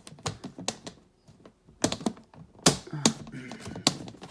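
A run of irregular, sharp clicks and knocks, hard objects being handled.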